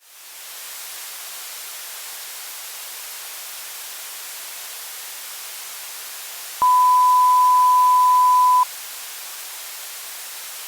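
Steady electronic hiss, like radio static, with a single pure beep near 1 kHz that starts about two-thirds of the way through and holds for about two seconds before cutting off.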